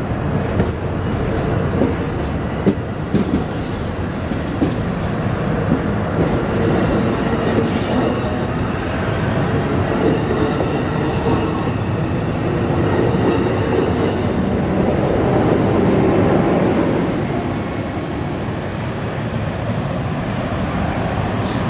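Seven-car Amtrak Capitol Corridor bilevel passenger train pulling out past the platform: steady rolling and wheel noise on the rails with a few sharp clicks a few seconds in. The noise swells about two-thirds through, then eases as the last car goes by.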